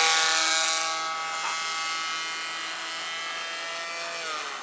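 Radio-controlled model Cessna 182's motor and propeller whining steadily at high throttle just after take-off, fading as the plane flies away; the pitch dips near the end.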